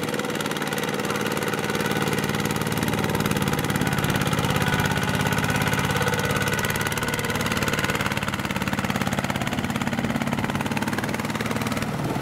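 Single-cylinder diesel engine of a two-wheel walking tractor running steadily with a rapid putter, working under load as it drags a loaded trailer through deep mud.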